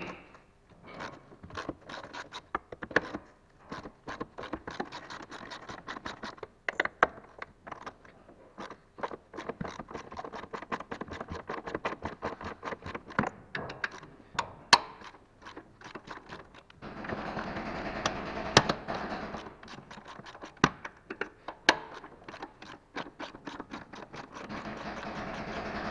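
Ratchet wrench clicking in quick runs as bolts on an upper engine mount bracket are loosened with a socket on an extension bar. A steady rushing noise joins in for a couple of seconds past the middle and again near the end.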